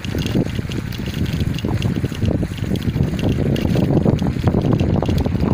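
Wind buffeting the microphone of a camera moving at speed, with a dense, unsteady rumble from travelling over a dirt road.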